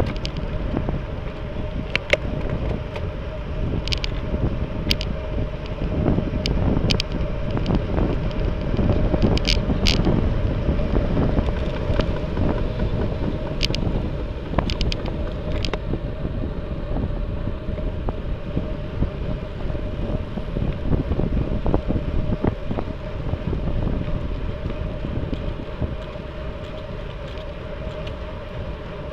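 Wind buffeting the microphone of a camera carried on a moving road bicycle, a steady low rumble. A few sharp clicks come and go through the first half.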